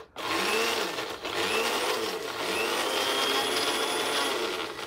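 Electric countertop blender with a plastic jar grinding a wet spice mix, switched on just after the start and running continuously. Its motor whine rises in pitch three times in the first few seconds, then holds steady.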